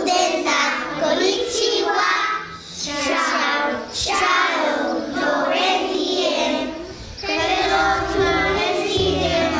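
A group of young children singing a song together, in phrases broken by short pauses about two and a half and seven seconds in.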